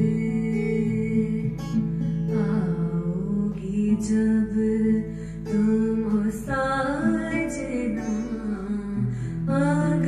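A woman singing a slow Hindi film song over a plucked acoustic guitar accompaniment, her voice coming in long, bending phrases between held notes of the backing.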